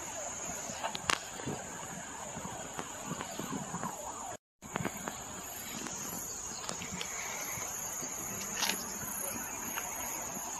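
Insects trilling in a steady, high, even tone, with a few faint clicks. The sound cuts out briefly about four and a half seconds in.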